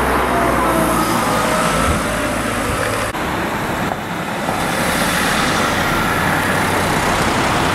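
Road traffic on a city street: a steady rush of passing cars, engines and tyre noise.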